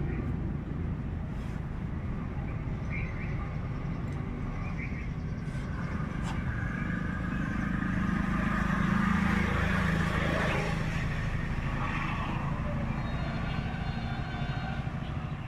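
Steady rumble of road traffic, with a vehicle passing that swells louder around the middle and then fades.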